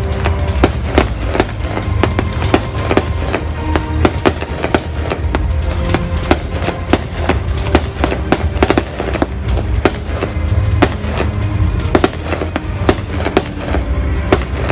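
Fireworks going off: a quick, irregular run of sharp bangs and crackles, several a second, with music playing underneath.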